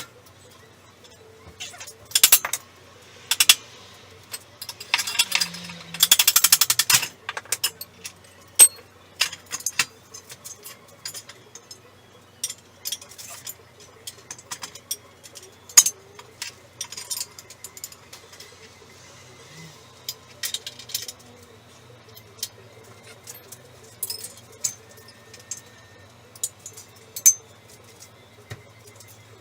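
Metal hand tools and engine parts clinking and clicking irregularly during engine teardown work. A denser run of rapid clicks comes about five to seven seconds in.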